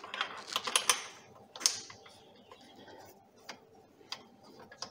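Small metallic clicks and taps from a locking pin being worked into the hinge joint of a metal rescue stretcher: a quick run of clicks in the first second, then a few scattered ones.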